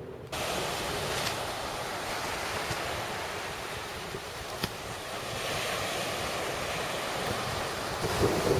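Surf breaking and washing up on a sandy beach, a steady rushing noise that starts abruptly just after the start, with wind buffeting the microphone, louder near the end. A single short click comes about halfway through.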